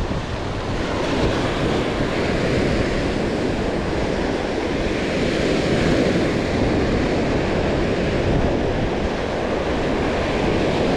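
Ocean surf washing up onto the beach close by, a steady wash of breaking waves, with wind buffeting the microphone.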